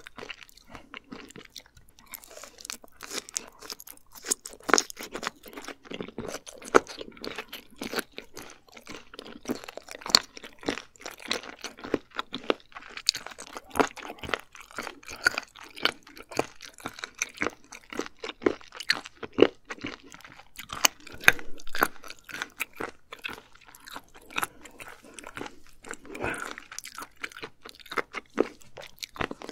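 Close-miked chewing of abalone, mostly raw sliced abalone: a continuous, uneven run of sharp crunches and wet mouth clicks.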